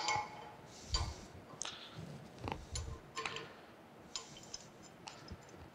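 Light metal clicks and clinks of a clevis being fitted between a lifting strap and an eye bolt on a steel machine table: a handful of scattered taps with quiet between them.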